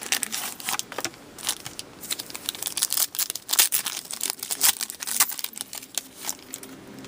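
Hockey trading card pack wrappers crinkling and tearing as packs are ripped open and handled, an irregular run of sharp crackles that thins out about six seconds in.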